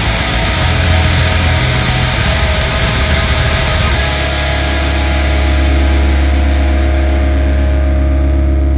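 Post black metal band recording: a dense wall of distorted guitars with drums, which drops away about four seconds in, leaving a held low chord ringing.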